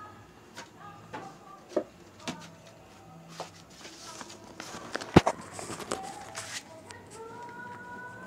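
Handling noise: scattered light knocks and rustling, with one sharp click about five seconds in.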